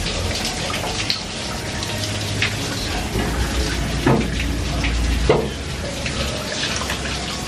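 Shower water running steadily with a spraying hiss. Two brief louder sounds come about four and five seconds in.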